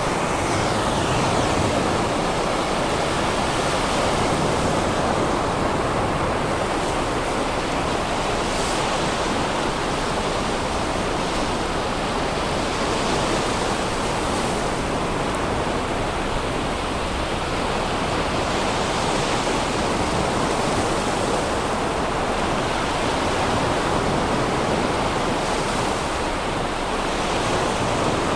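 Sea surf breaking and washing up on a sandy beach: a steady rushing noise that rises and falls slightly with the waves.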